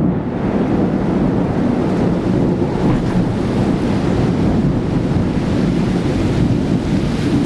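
Torrential cloudburst rain pouring down in a loud, steady rush, with wind buffeting the microphone.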